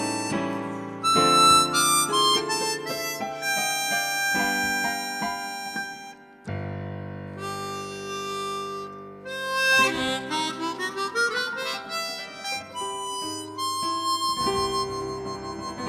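Harmonica playing a melody over keyboard accompaniment, with a brief pause about six seconds in.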